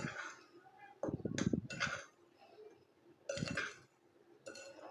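Fingers stirring flour, powdered sugar and baking powder together in a glass bowl, rubbing through the powder and against the glass in three short bouts.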